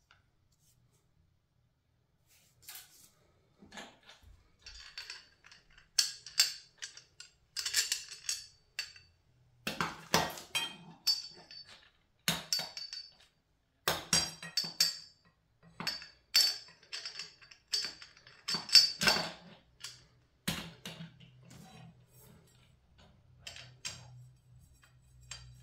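Powder-coated steel tubes and fittings of an IKEA RIGGA clothes rack clinking and knocking as they are handled and fitted together, a bolt going into the base tube. The clinks come irregularly, some ringing briefly.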